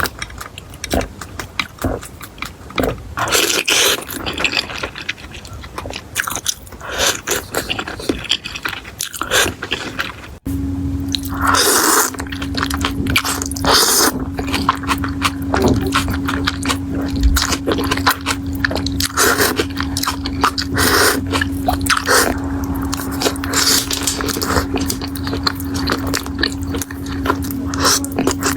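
Close-miked mukbang eating sounds: repeated crunchy bites and chewing with wet, scraping mouth noises. About ten seconds in the background changes abruptly and a steady low hum runs under the eating from then on.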